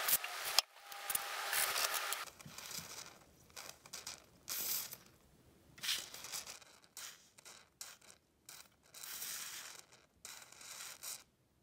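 Aerosol can of WD-40 white lithium grease hissing in a series of short sprays through its straw onto a floppy drive's metal mechanism, re-lubricating it. The longest sprays come about a second in and again shortly before the end.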